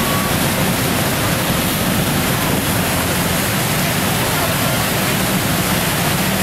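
Steady rushing noise of wind and the ferry's churning wake, heard from the open deck of the moving ferry.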